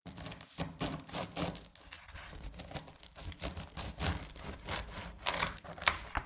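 Kitchen knife cutting on a board: a continuous, irregular run of slicing and scraping strokes with sharp ticks of the blade meeting the board. A few louder, sharper knocks come near the end, and the sound starts and stops abruptly.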